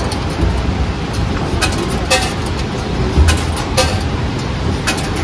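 Keychain medal engraving vending machine's selector knob being turned by hand, giving about half a dozen separate sharp clicks, over a steady low rumble.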